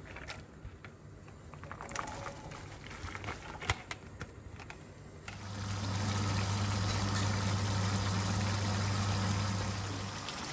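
Chopped cabbage and carrots in a pot of oil, vinegar and water brine at the boil. It is faint at first with a few light clicks. About five seconds in it turns to a louder bubbling hiss with a steady low hum underneath, and the hum stops near the end.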